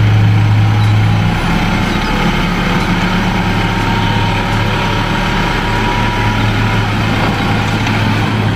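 Light dump truck's engine running steadily while its hydraulic hoist tips the loaded bed up to dump soil.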